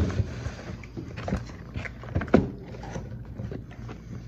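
Handling noise from a cardboard carton and plastic drink pouches being picked up and moved close to the microphone: irregular knocks and rustles, the loudest near the start and at about a second and a half and two and a half seconds in, over a steady low hum.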